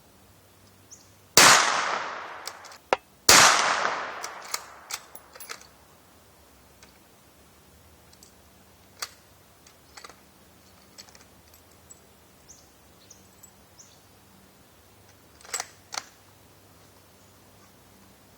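Two shots from a Ruger American Ranch .223 bolt-action rifle firing cast-bullet Titegroup handloads, about two seconds apart, each trailing off in a long echo. Sharper clicks follow between and after the shots, with a louder pair near the end.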